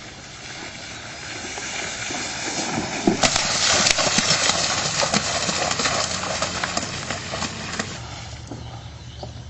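Bare feet splashing through shallow floodwater on grass as two people run. The splashing grows louder to a peak three to four seconds in, then fades and stops near the end.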